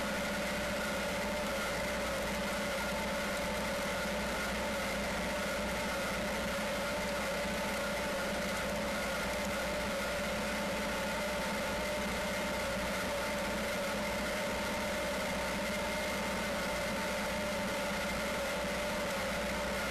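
Tractor engine running at a steady speed while under way, with its PTO driving a three-point broadcast spreader. A constant drone with a steady whine of several fixed tones over the engine noise.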